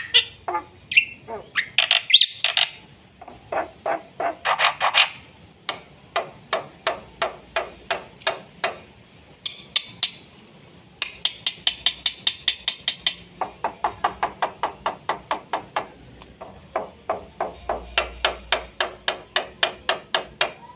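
Black-winged myna (jalak putih) singing a fast, full song: long runs of sharp clicking notes, several a second, with squeaky notes in the first few seconds and a harsh rasping phrase about eleven seconds in.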